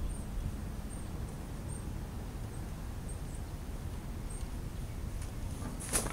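Outdoor ambient noise: a steady low rumble with a few faint, short, high chirps scattered through it, and a brief louder rush of noise near the end.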